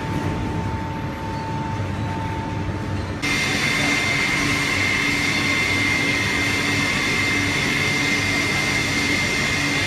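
Induction furnace running: a steady industrial hum and hiss with a thin, constant high whine. About three seconds in, the sound steps up suddenly: it gets louder and the whine jumps to a higher pitch.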